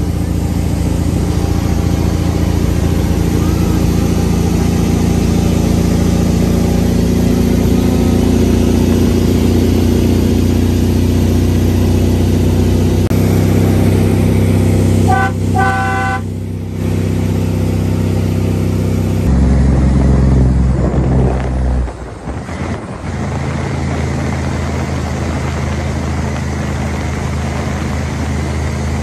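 Semi truck engine running steadily while driving, heard in several cut-together stretches, with a horn sounding in a few short toots about halfway through.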